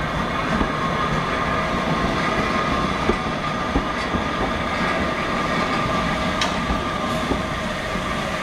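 Passenger coaches of a departing steam train rolling past close by. The wheels click now and then over rail joints over a steady rumble, with a steady thin squeal from the wheels on the rails.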